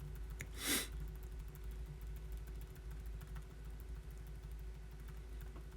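Low, steady background hum with faint scattered clicks, and a short rush of noise a little under a second in.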